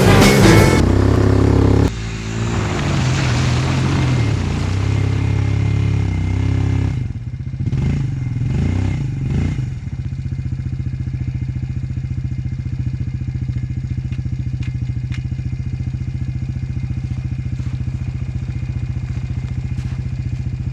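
Background music cuts off about two seconds in, leaving an ATV engine running under load. Its revs rise and fall several times as it tries to drive out of mud where it is stuck, then it settles into a steady idle.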